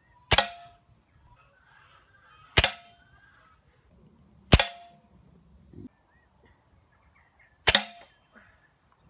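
Four shots from an old Webley Hawk .22 break-barrel spring-piston air rifle. Each is a sharp crack with a short ring, and they come two to three seconds apart.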